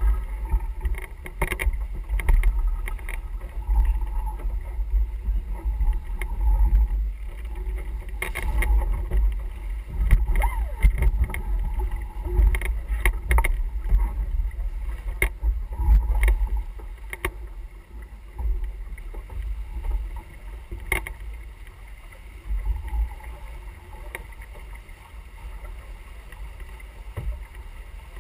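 Wind and water noise aboard a sailing yacht under way: a heavy, gusting rumble of wind on the microphone over the rush of water along the hull, with a few sharp knocks scattered through it. The sound eases somewhat in the last third.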